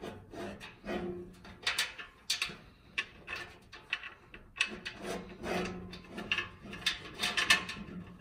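Irregular metallic clicks, knocks and scrapes as the steel bottom shelf of a flat top grill is handled and bolted onto the frame legs by hand, the loudest strikes about two seconds in and near the end.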